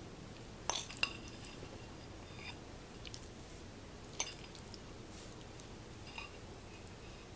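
Metal fork clinking against a glass bowl while stirring sauced rotini mac and cheese: a few light clinks with a short ring, the sharpest about a second in and at about four seconds.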